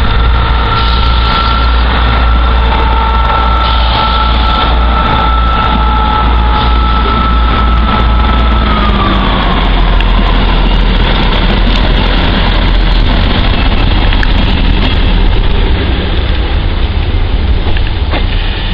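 Class 158 diesel multiple unit running past at close range as it pulls out, its diesel engines giving a loud low rumble with a steady whine on top. The whine drops in pitch about nine seconds in.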